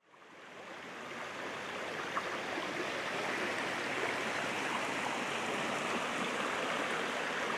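Small stream flowing, a steady rush of moving water that fades in over the first second or so.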